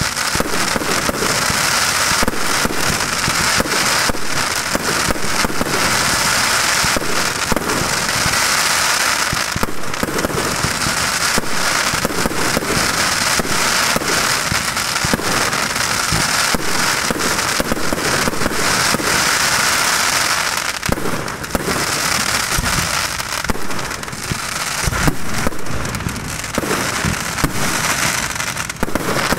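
Aerial fireworks bursting in quick succession: a near-continuous crackling and popping, with a few heavier bangs in the second half.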